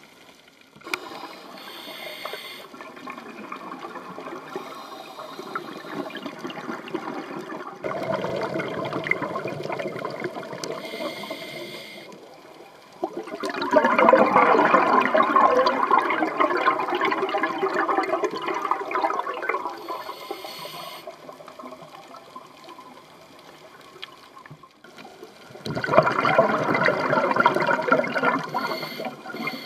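Scuba diver's regulator exhaust bubbles heard underwater: long gurgling surges of bubbling as each breath is exhaled, several seconds apiece, with short quieter pauses between them while breathing in.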